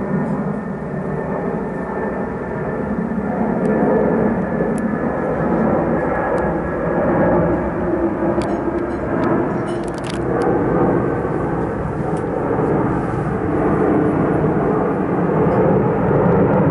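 Boeing 747-436's four Rolls-Royce RB211 turbofan engines at climb power as the jet climbs away after take-off: a steady loud rush that grows a little louder about four seconds in.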